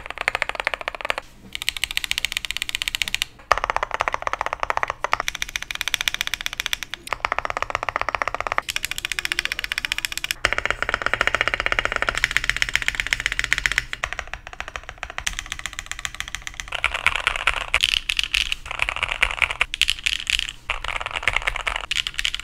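Continuous fast typing on a custom mechanical keyboard: a dense, rapid run of keystroke clacks with occasional spacebar strokes. The tone of the clacks changes every second or two, from one stretch to the next.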